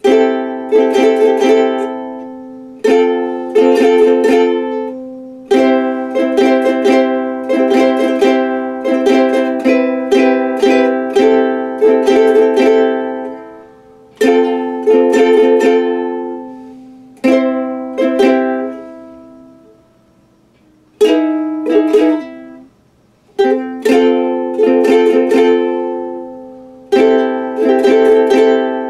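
A small plucked string instrument, a mandolin or ukulele, strummed in chords, each strum ringing out and fading, in phrases with a few short breaks between them.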